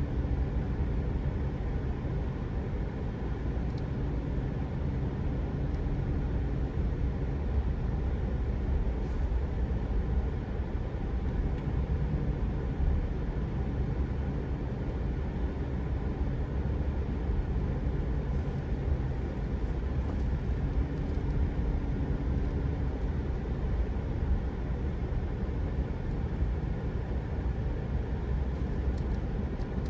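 Vehicle driving, with a steady low engine hum and road noise.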